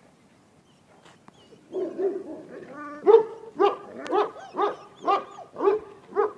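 A dog barking repeatedly, starting about two seconds in and settling into a steady run of loud barks, about two a second.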